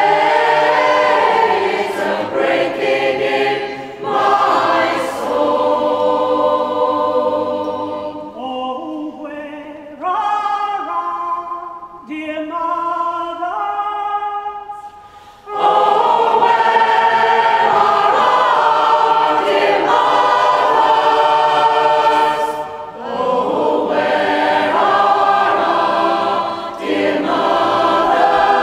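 Community choir of mostly women's voices singing unaccompanied in a large cathedral. About eight seconds in, the singing thins to fewer voices and grows quieter, then the full choir comes back in strongly about halfway through.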